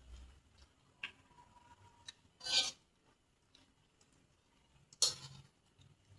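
A few short crunching, rustling bursts of raw vegetables being bitten and chewed, the loudest about two and a half seconds in and a sharp one near the end.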